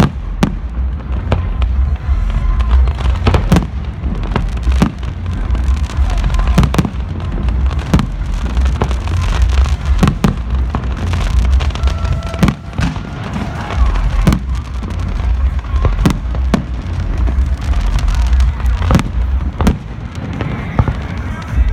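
Many fireworks going off in quick, irregular succession: sharp bangs and crackles over a continuous low rumble.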